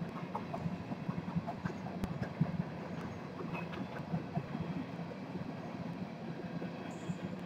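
Empty open-top coal cars of a freight train rolling past, a steady rumble of steel wheels on rail with scattered short high clicks.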